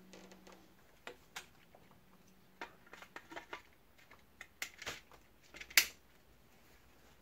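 Small clicks and knocks of a flashlight and its mount being handled and fitted onto an air rifle's rail, coming in quick irregular clusters, with the sharpest click near the end.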